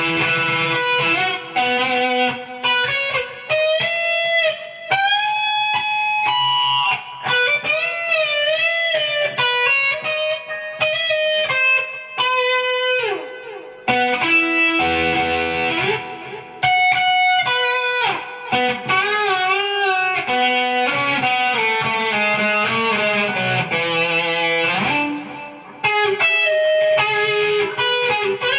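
Electric guitar playing a lead melody of single notes, with wavering vibrato on held notes and several sliding pitch falls and rises.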